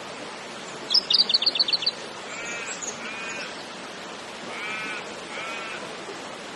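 Bird calls: a quick, high trill of about eight notes, then four short, nasal calls a second or so apart, over a steady hiss.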